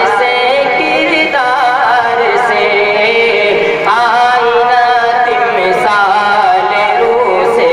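A man singing an Urdu nazm, a devotional poem, through a stage microphone. He uses a melodic, drawn-out style with long held notes and winding ornaments of pitch.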